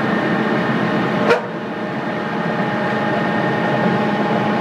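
Forklift-mounted earth auger drilling into soil: a steady mechanical hum with several steady tones. There is one sharp knock a little over a second in.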